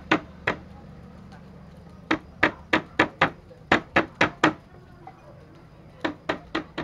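Lemongrass stalks being bashed on a cutting board with a blunt tool to bruise them: sharp knocks in quick runs of four or five, about three or four blows a second, with short pauses between the runs.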